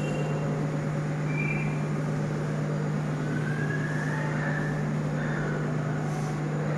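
Steady low electrical hum with an even hiss of room noise behind it, and a few faint short whistle-like tones.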